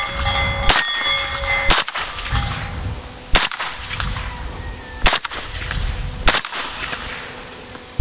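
Suppressed Ruger Mini-14 short-barrelled rifle in .223/5.56 firing five single shots, about one to two seconds apart. A thin metallic ringing follows the first shot.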